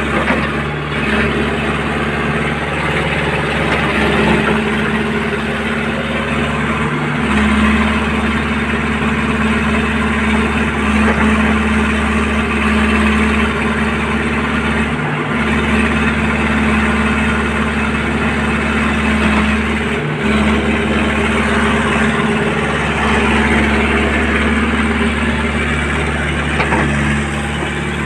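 Hitachi Zaxis 75US compact excavator's diesel engine running steadily as the boom is raised and the upper body swings. Its low hum dips briefly a few times.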